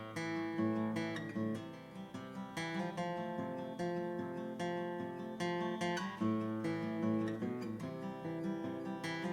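Martin CEO-7 steel-string acoustic guitar being strummed, full chords ringing between strokes, with the chord changing every second or so.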